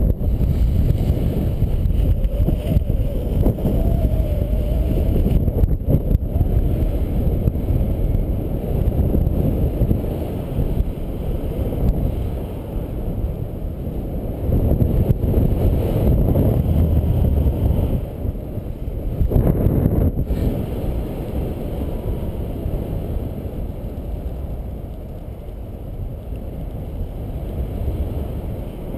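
Rushing airflow buffeting the microphone of a camera on a paraglider in flight: a loud, low rumble of wind noise that swells and eases in gusts.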